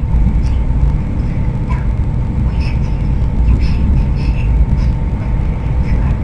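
High-speed train running, a steady low rumble heard from inside the carriage.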